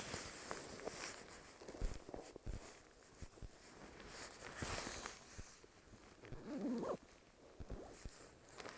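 Rustling and swishing of a down sleeping bag's Pertex Shield shell as a person shifts inside it and pulls the hood around the head, with a few soft knocks and a short low sound about two-thirds of the way in.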